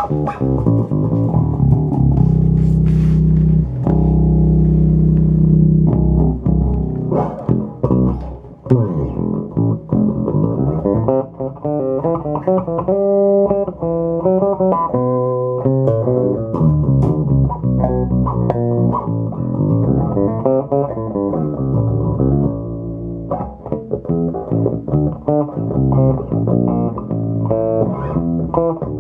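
Electric bass played through a Phil Jones Bass Briefcase, a compact combo amp with two small speakers. It opens with long held notes and chords for the first several seconds, then moves into quicker melodic runs.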